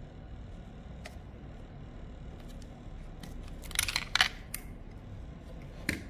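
Hard plastic clicking and clacking as a keycap and its clear display cube are handled: a quick run of sharp clicks about four seconds in, a few lighter ticks before it and one more click near the end, over a faint steady room hum.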